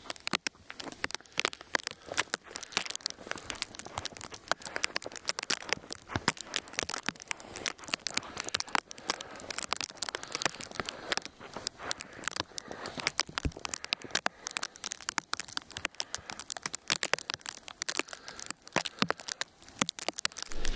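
Sleet and ice pellets ticking and crackling in a dense, irregular patter on surfaces and snow during an ice storm.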